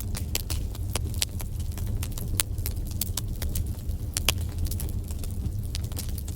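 Wood fire burning in a fireplace: a steady low rumble of flames with sharp, irregular crackles and pops, several a second.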